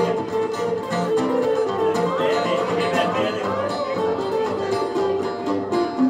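Two acoustic guitars strummed together, playing a steady rhythmic groove live.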